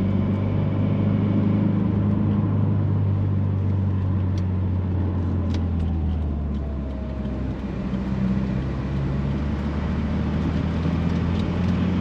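2018 Subaru WRX's turbocharged flat-four engine running steadily. About seven seconds in, the level dips briefly and the pitch shifts before the sound steadies again.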